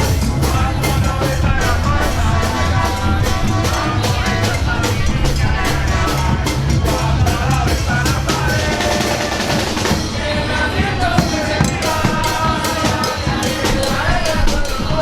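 Loud music with a steady, regular drum beat and a singing voice; the heavy bass drops away about seven seconds in.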